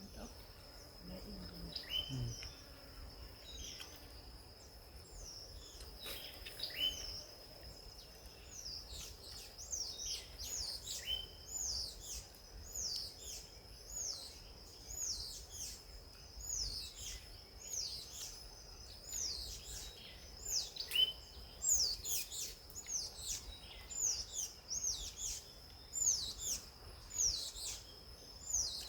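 Wild birds calling: a long run of short, sharp whistled notes that sweep downward, few at first and then coming about every half second and louder from around nine seconds in. Under them runs a steady, thin, high-pitched drone.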